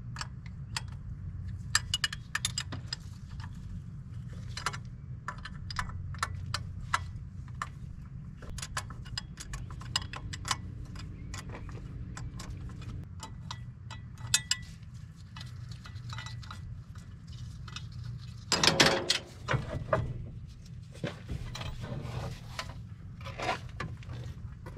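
Metal tools and car parts clinking and clattering in short, irregular knocks as an engine bay is stripped by hand, over a steady low rumble. A louder clatter lasting about a second comes near the end.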